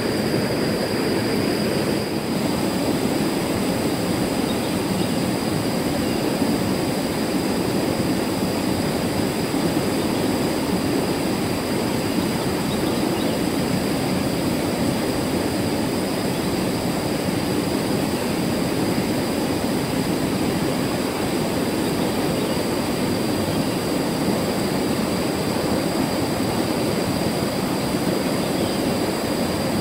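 Steady rush of a fast-flowing rocky river pouring through rapids, an unbroken roar of water.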